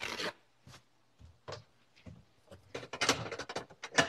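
A paper towel ripped quickly off its roll at the start. Then, from about two and a half seconds in, a run of knocks and clinks as a cabinet door is opened and dishes on its shelf are moved.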